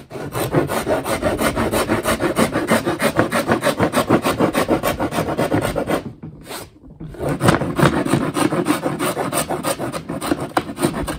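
A hand file rasped back and forth across the edge of a wooden board in quick, even strokes, several a second, trimming a scribed edge down to its cut line. The filing stops for about a second just past halfway, then carries on.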